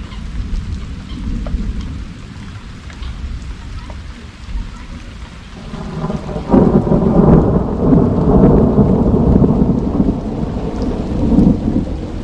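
Rain falling with a low rumble of thunder. About halfway through, a much louder peal of thunder begins suddenly and keeps rolling.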